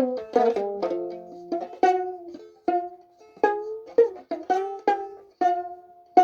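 A solo plucked string instrument playing a slow melody of single notes, each struck sharply and left to ring and die away.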